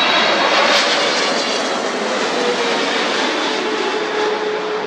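Boeing 777-300ER's two GE GE90-115B turbofans on final approach, passing low overhead: a loud, steady rush of jet noise with a tone that slowly falls in pitch during the second half.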